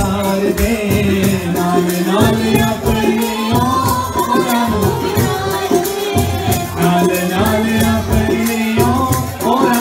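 Live Hindu devotional bhajan (a bhent to the Goddess): a woman and a man singing into microphones over dholak drum and keyboard, with held notes underneath. A quick, steady beat of sharp hand-clapping runs through it.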